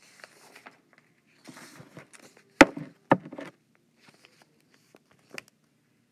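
A few knocks and clicks with faint rustling between them. The loudest knock comes about two and a half seconds in and a second follows half a second later.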